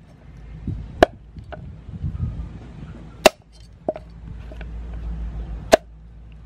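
Cleaver chopping mud crab on a wooden chopping board: sharp cracks of the blade through shell into the board at uneven intervals, three loud and two lighter, with soft handling noise between.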